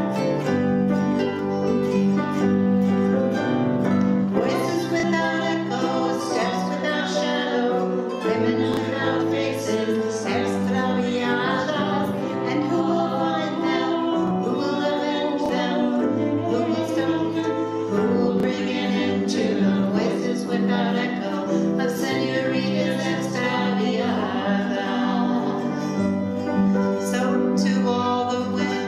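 Small acoustic band playing an instrumental tune on grand piano, acoustic guitar and other plucked strings, with a steady bass line under changing chords.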